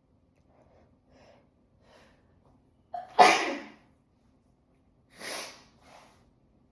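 A person sneezing: a few short, faint in-breaths build up to one loud, explosive sneeze about three seconds in, then a second, quieter burst a couple of seconds later.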